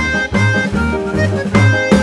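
Instrumental music with a steady beat: plucked bass-line notes and drums under a melody.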